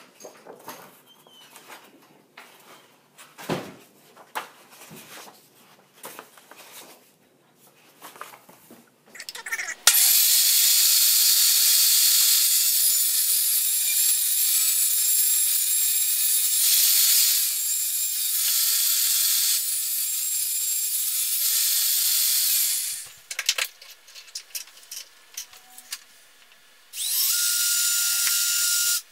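Faint paper-and-plastic clicks and rustles at a paper trimmer, then a portable table saw runs loudly for about thirteen seconds while ripping a thin hardboard panel. Near the end a cordless drill runs for about two seconds with a steady whine as it bores into the board.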